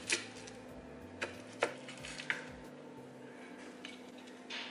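A black plastic slotted spatula tapping and scraping against a white enamel baking dish as a baked oat slice is cut and lifted out: four short clicks in the first two and a half seconds, then a softer knock near the end.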